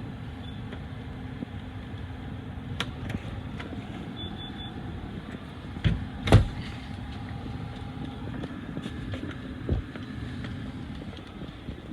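Knocks and handling thumps, two loud ones a little past halfway, over a steady low hum. Faint short high beeps from the Honeywell Vista 20P alarm keypad in walk-test mode, three quick ones about four seconds in.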